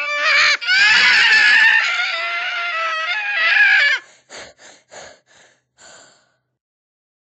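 Talking Tom Cat's high-pitched, sped-up cartoon voice squealing for about four seconds. Then come about five short bursts, evenly spaced, before it stops.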